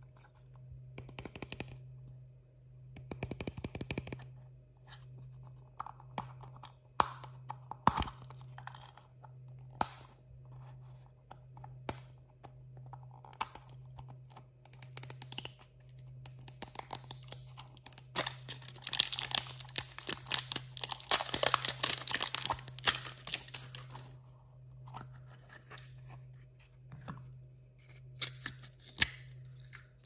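Plastic toy capsule and its wrapping handled and opened by hand: scattered taps, clicks and crinkles, then a dense few seconds of tearing and crinkling plastic about two-thirds of the way through, over a steady low hum.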